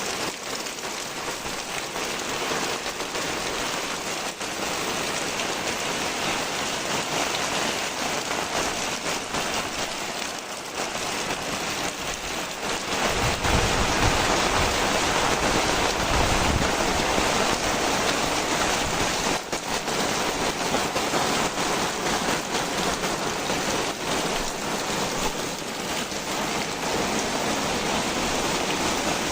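Heavy rain falling steadily. A low rumble swells in for a few seconds near the middle, and the rain is louder after it.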